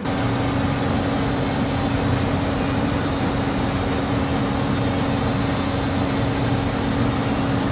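A machine running steadily: a constant low hum over a loud, even noise that cuts in and out abruptly.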